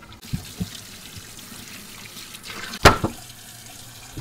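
Tap water running into a stainless steel sink full of soaking beef bones, a steady splashing, with one sharp knock about three seconds in.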